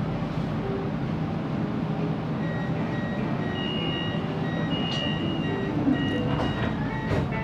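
Siemens Inspiro MRT train running, heard inside the carriage: a steady rolling noise, with faint high-pitched tones coming and going.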